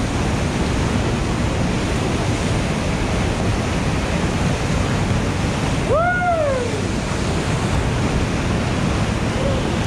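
Whitewater of a steep creek rapid and waterfall drop rushing loudly and steadily around a kayak. About six seconds in, a person's voice gives one short call that rises and falls in pitch.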